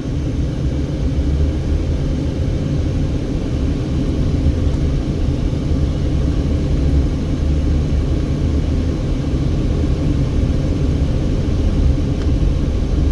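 Steady low rumble of a car driving, heard from inside the cabin: engine and tyre road noise with no distinct events.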